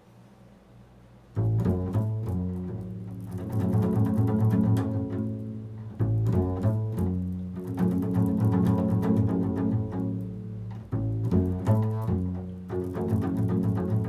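Improvised solo instrumental music starting about a second in, playing sustained low notes, with strong new attacks about six and eleven seconds in.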